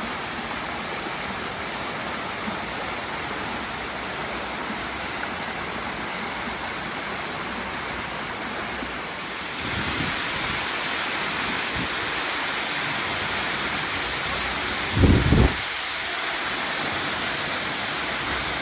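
Waterfall rushing steadily, growing louder about halfway through, with a short low thump about three-quarters of the way in.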